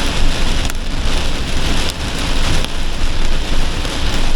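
Torrential rain pouring down on a moving campervan, heard from inside the cab, with a steady low road rumble underneath.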